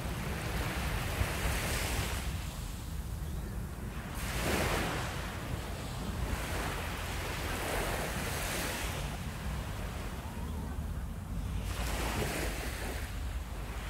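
Wind buffeting the microphone over the wash of surf, with swells of noise every few seconds.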